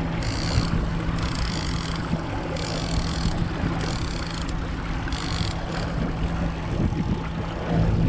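Motorboat engine running at a steady pitch, with a hiss that comes and goes every second or so over it.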